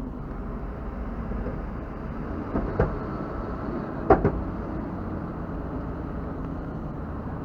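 Vehicle engine running low and steady during a rope tow of a truck stuck on the ramp, with two short knocks, one about three seconds in and one about four seconds in.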